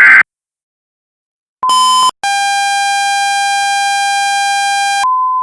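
Electronic emergency-alert attention tones. A loud buzzing blast cuts off just after the start; after a pause come a short buzz and then a long, lower buzzing tone of about three seconds. Near the end this switches to a pure steady beep that begins to fade, leading into the warning broadcast.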